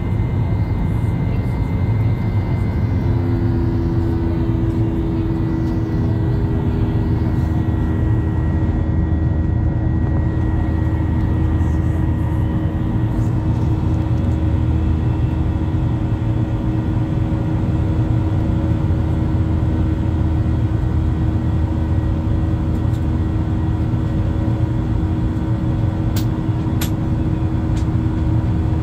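Airliner cabin noise during the climb after takeoff: a loud, steady rumble of the jet engines and rushing air, with steady engine hums on top, one joining about three seconds in.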